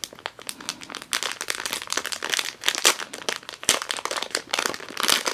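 Thin clear plastic bag crinkling and rustling as hands work a compression sleeve out of it: a dense, irregular run of crackles.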